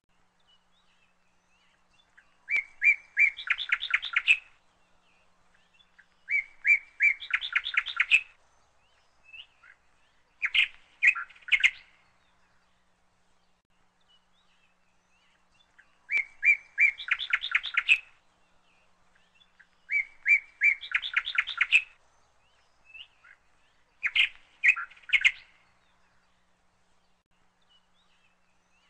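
A songbird singing six short phrases a few seconds apart. Each phrase is a few clear notes that run into a quick trill.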